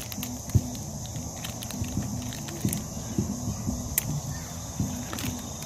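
Indistinct background voices murmuring, with scattered sharp clicks and a steady high-pitched hiss.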